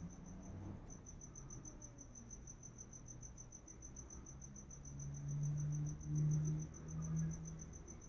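A cricket chirping in a steady, fast, high-pitched pulsing trill. A low hum swells up near the end and is the loudest sound.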